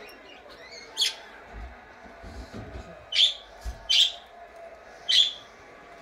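Budgerigar giving four short, sharp chirps spread over a few seconds, with a faint low knock or two in between.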